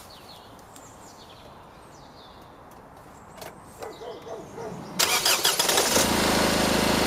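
Car engine cranked on the starter and catching about five seconds in, then running at a steady idle.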